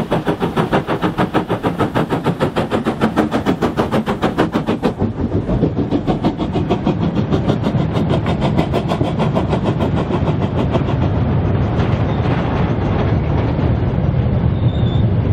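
Steam exhaust beats from Taff Vale Railway 02 class tank engine No. 85 and a second tank engine double-heading a goods train, fast and even at about six beats a second. About five seconds in the beats fade into the steady rumble and clatter of goods wagons rolling past on the rails.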